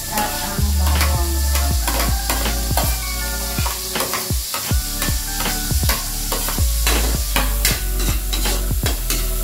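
Chopped onion and garlic sizzling in melted margarine in a steel wok, with a metal spoon and spatula scraping and clinking against the plate and wok many times as they are tipped in and stirred. Background music plays underneath.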